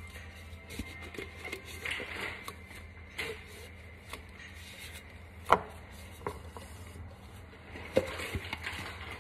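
A mixer-grinder jar being emptied of ginger-garlic paste by hand: soft scraping and squelching of paste, with a few sharp knocks of the jar, the loudest about halfway through and another near the end, over a low steady hum.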